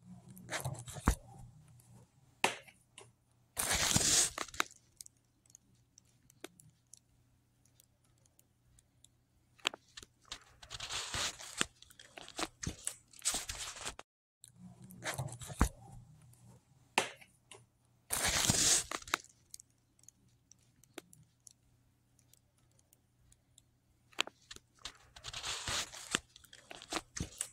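Close-up eating noises: chewing with scattered clicks and scrapes of a fork on a paper plate, broken by several louder hissing bursts of rustling.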